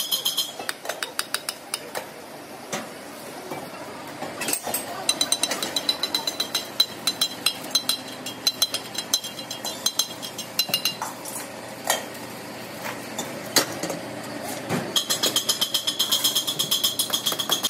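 Steel LPG cylinder half turning on a lathe-type fixture, with rapid metallic ticking, several ticks a second, and a high ringing from the thin steel shell. It comes in spells, loudest at the start and again near the end, with single knocks in between.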